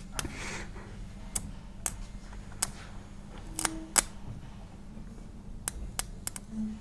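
Low steady electrical hum from a 4 kW bank of heaters running under load, with about ten scattered sharp clicks or snaps over it.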